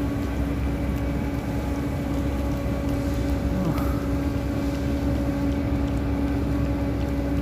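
Steady drone of a small engine running at a constant speed: one even tone over a low rumble, with no change in pitch or level.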